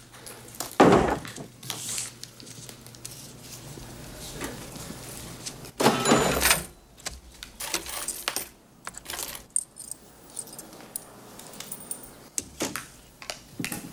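Coins and small hard objects clinking and knocking in a series of separate sharp sounds, with a louder clatter about six seconds in.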